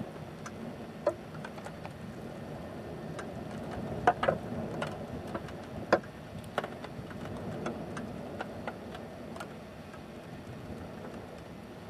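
Black spruce forest burning at close range: a steady low rush of flame with scattered sharp crackles and pops, the loudest about four and six seconds in.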